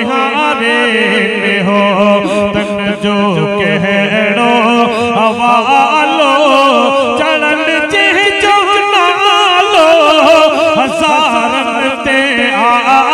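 A man singing a devotional Molud song in praise of Muhammad into a microphone, solo and unaccompanied, in long held notes that waver and curl in ornamented runs.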